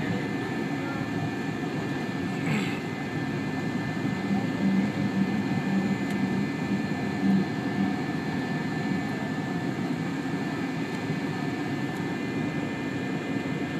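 Cabin noise of a McDonnell Douglas MD-82 taxiing: a steady rumble from its rear-mounted Pratt & Whitney JT8D jet engines with a thin, steady high whine over it. A brief rattle about two and a half seconds in.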